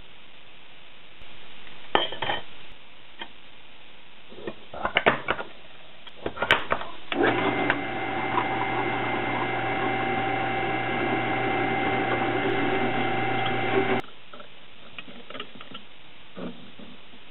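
Benchtop drill press running steadily while drilling small #43 holes in a metal strip, with a steady hum and whine that stops abruptly about two-thirds of the way through. Before it come a few sharp clicks and knocks of metal parts being handled.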